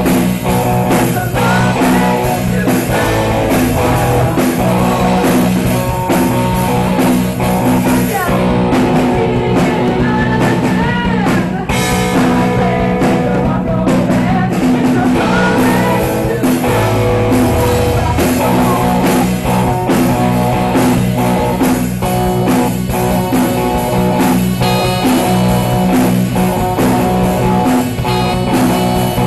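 A live rock band playing a song: guitars over a steady drum beat, with singing.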